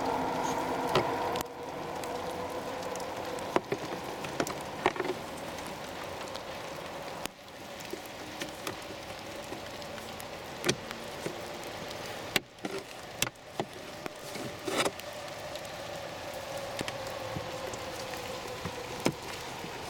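Scattered sharp plastic clicks, snaps and knocks as the cabin air filter access cover and the glove box of a 2011–2016 Scion tC are fitted back into place, over a steady background hiss.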